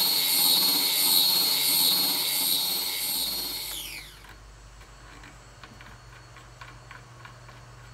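Oscillating spindle sander running with a regular pulse, then switched off about three and a half seconds in, its whine falling as the motor spins down. Then faint clicks as the sanding drum's top knob is unscrewed.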